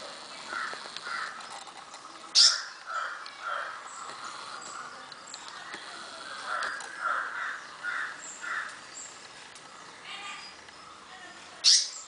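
Birds calling: a run of short repeated calls, several in quick series, with two loud sharp calls, about two and a half seconds in and near the end, and a few faint high chirps between.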